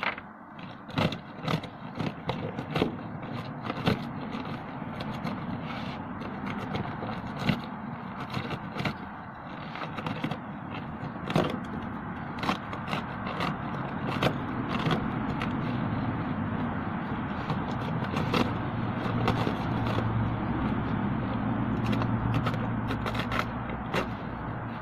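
Rocks knocking and scraping against one another as they are handled, with many irregular sharp clicks. A low steady hum grows louder in the second half.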